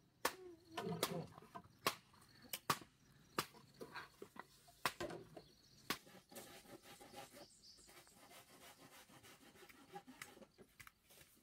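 Irregular sharp knocks and cracks of a machete chopping and splitting bamboo poles, with the strokes densest in the first six seconds and thinning out later.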